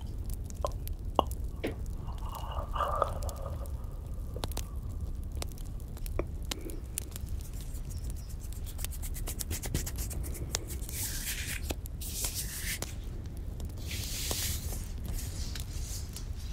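Crackling campfire sound effect: irregular pops and snaps over a low steady rumble, with two louder breathy hissing swishes in the second half.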